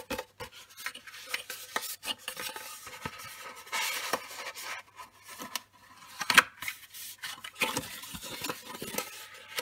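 Stiff cardstock being folded along its score lines by hand: paper rustling and rubbing with many small sharp clicks as the creases are pressed, the loudest click about six and a half seconds in.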